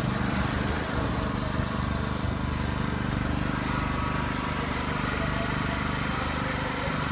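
A steady low engine hum, an even motor drone with no change in speed.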